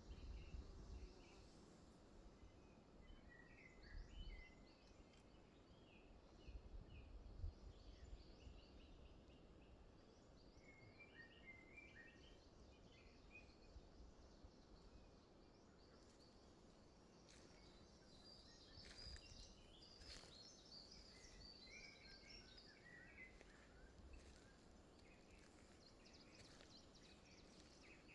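Faint forest ambience: small songbirds sing short chirping phrases now and then, most busily in the second half, over a steady low hiss with a few low gusts of wind on the microphone in the first several seconds.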